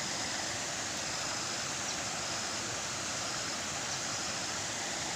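Steady rushing noise like flowing water, with a faint high whine that keeps breaking off and returning.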